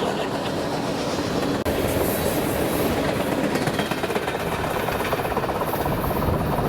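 Union Pacific freight train rolling past: a steady, dense rumble of wheels on the rails.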